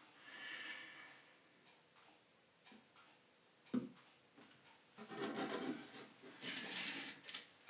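Faint handling of small model railway fittings on the layout: a soft hiss near the start, one sharp click about four seconds in, and light rustling near the end.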